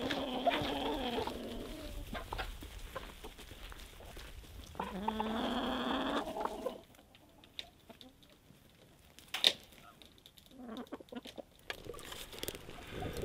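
Domestic chickens, hens and a rooster, clucking, with one long drawn-out call about five seconds in. After that, quieter clicks and one sharp knock a little past the middle.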